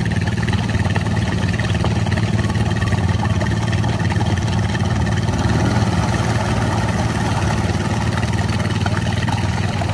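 Snorkeled ATV engine held at steady high revs as the machine ploughs nose-deep through a mud hole, its tyres spinning in thick mud.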